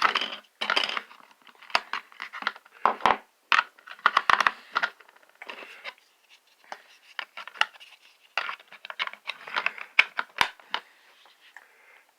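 Plastic video doorbell being handled while an 18650 battery is swapped in: irregular scraping and rustling, broken by several sharp clicks.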